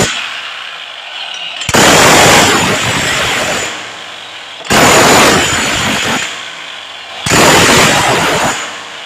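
A loud power tool run in short bursts, each starting suddenly, lasting a second or two and then winding down, about every two and a half to three seconds.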